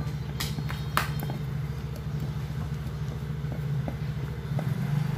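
A few sharp clicks of a screwdriver and screws against an electric fan's metal motor housing during reassembly, the loudest about a second in, over a steady low, fast-pulsing mechanical hum.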